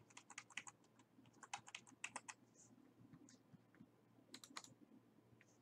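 Faint, rapid clicking and tapping at a computer keyboard and mouse, in three short flurries.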